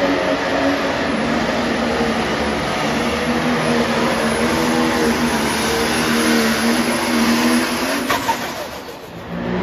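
Pulling tractor's engine running flat out as it drags the weight-transfer sled: a loud, steady engine drone with a thin high whine above it. About eight seconds in the engine note drops away and the sound dips as the pull ends.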